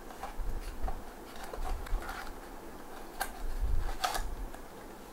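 Cardboard window box and its plastic inner tray being handled and slid apart, with a few sharp clicks and rustles of packaging.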